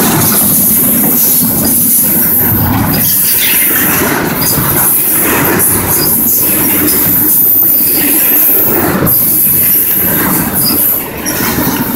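Norfolk Southern double-stack intermodal freight train passing close at speed: loud, continuous rumble and rattle of well cars with irregular wheel clatter on the rails and a steady high hiss of wheel squeal above it.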